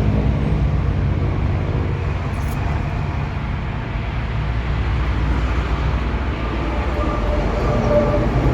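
Road traffic going past: a motor vehicle's engine hum fades over the first two seconds, leaving a steady low rumble of traffic.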